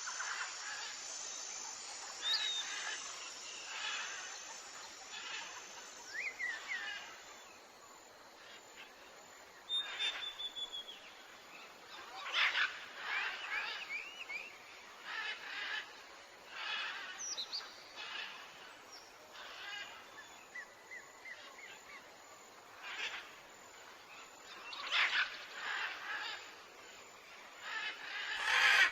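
Birds calling: many short chirps and whistled notes, some sliding in pitch, coming at irregular intervals over a steady background hiss.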